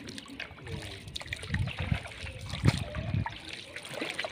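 Floodwater splashing and lapping against a small boat as it moves along a flooded road, with a few dull low thumps in the middle, the strongest about two-thirds through.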